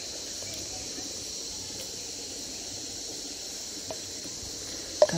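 A steady, high-pitched insect chorus, an even continuous buzz, with a single sharp click just before the end.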